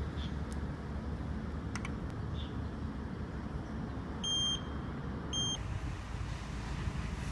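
Two short, high electronic beeps about a second apart, over a steady low rumble.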